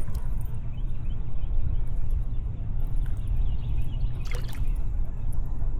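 Water trickling and lapping around a kayak, under a steady low rumble of wind on the microphone, with one short sharp sound about four and a half seconds in.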